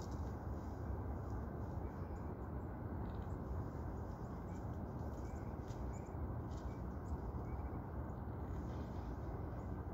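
Steady low rumble of wind on the microphone outdoors, with faint short bird chirps now and then.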